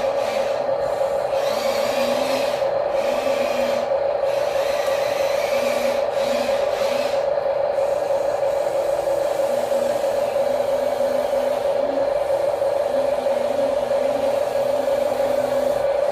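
Steady whine of a toy RC construction machine's small electric motor and plastic gearbox, running at an even pitch.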